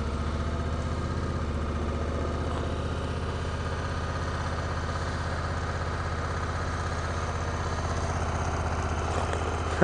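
Honda Africa Twin CRF1000L's parallel-twin engine idling steadily, cold, just after finally starting in 2 °F weather.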